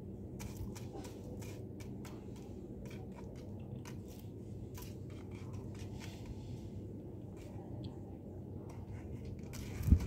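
Kitten's claws scratching and catching on a wooden door post: irregular sharp scratches and clicks over a steady low hum, with a loud thump near the end.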